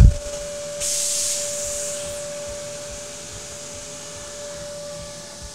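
CNC milling machine running: a sudden airy hiss starts about a second in and fades over the next two seconds, over a steady hum.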